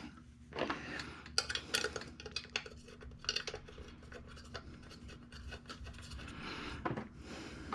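Light metallic clinks, taps and scraping as small engine parts and hand tools are handled, in scattered irregular ticks.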